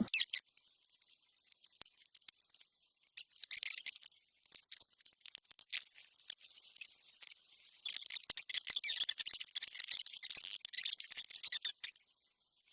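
High-pitched scratching and squeaking with scattered small clicks, in two spells about three seconds in and from about eight seconds in: hand tools working the air compressor's motor housing as its back cover comes off.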